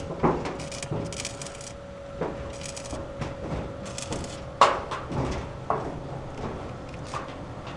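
Corrugated iron roofing sheets being handled: scattered metal knocks and clanks with short scraping rasps, the loudest clank a little past halfway. A faint steady tone runs beneath and stops at about the same moment.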